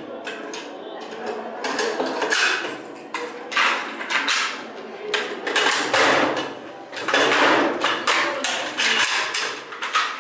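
AK-74 assault rifle being stripped and reassembled at speed by hand: a quick, irregular run of metallic clacks, clicks and snaps as parts are fitted and locked into place, with knocks of steel parts set down on the table.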